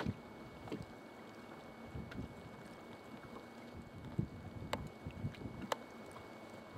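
Faint wind buffeting the microphone in low thumps, with water lapping, and two sharp clicks about a second apart just past the middle.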